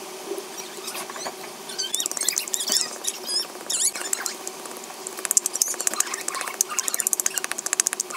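Fresh red chilies being crushed into salt with a pestle in a small bowl to make chili salt. There are high squeaks about two to four seconds in, then quick scraping, grinding strokes at about ten a second from about five seconds in.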